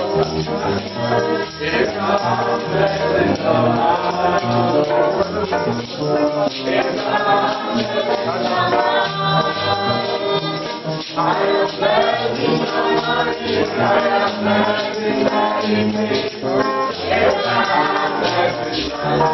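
Choir singing a gospel song to a steady beat, with tambourine and a bass line underneath.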